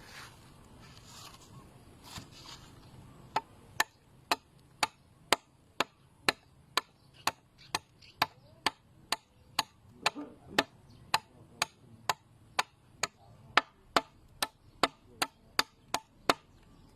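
A heavy forged knife chopping again and again, sharp even strikes about two a second that start a few seconds in and stop shortly before the end.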